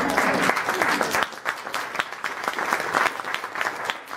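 Audience applauding, many hands clapping; the applause gets a little thinner and quieter after about a second.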